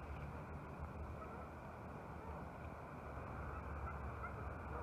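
Outdoor lakeside ambience: a steady low wind rumble on the microphone, with a few faint bird chirps.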